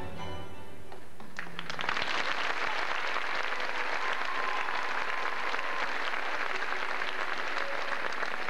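Music stops about a second in, and a large audience breaks into applause that carries on steadily.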